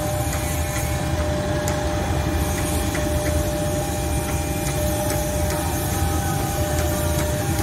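Diesel-electric locomotive of a passenger train approaching from a distance, its engine a steady low rumble, with two steady high tones held above it.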